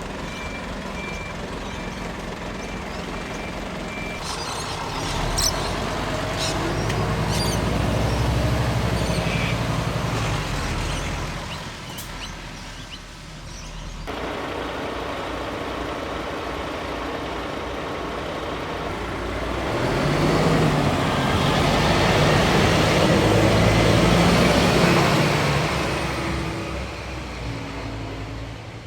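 Fire trucks' diesel engines passing by, the rumble swelling loud twice and fading. A run of short, evenly spaced high beeps sounds in the first few seconds.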